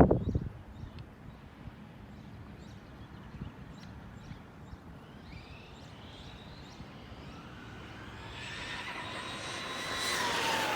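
Brushless electric motor and drivetrain of an Arrma Granite 4x4 BLX RC truck whining as it drives toward the microphone, the whine rising and growing louder over the second half and dropping in pitch near the end as the truck passes. A short loud thump or rush comes right at the start.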